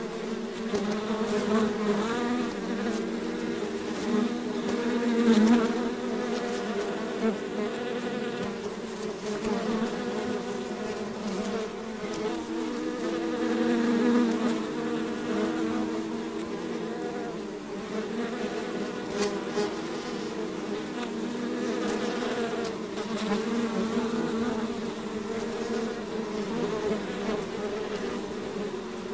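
Many bees buzzing together as a swarm: a continuous dense hum of overlapping wing-beat tones whose pitch wavers, swelling louder for a moment about five seconds in and again about fourteen seconds in.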